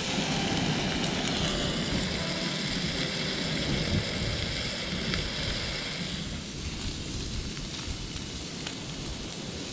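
Mackerel fillets sizzling in a frying pan over a wood fire, with wind rumbling on the microphone. The sizzle weakens about six seconds in.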